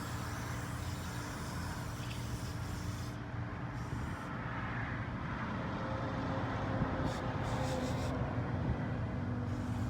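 Steady low mechanical hum with a haze of background noise, growing slightly louder in the second half.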